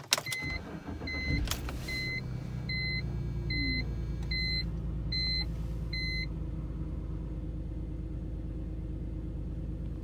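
2005 BMW 325i E46's M54 straight-six being started: a short crank that catches about a second and a half in, then a steady low idle that is rough from a misfire on cylinder 6 (code P0306), which the owner puts down to a failing ignition coil. A dashboard warning chime beeps about eight times, evenly spaced, over the first six seconds.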